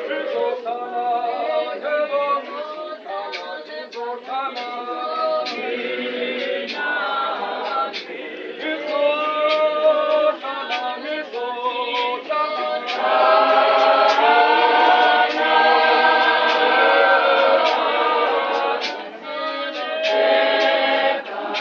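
Church congregation of men and women singing a hymn together unaccompanied, many voices in harmony. The singing swells louder and fuller about halfway through, then eases back near the end, with sharp clicks about twice a second.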